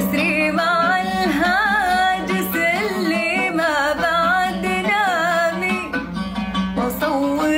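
A woman singing an Arabic song in a long, ornamented melody that bends up and down, over plucked-string accompaniment.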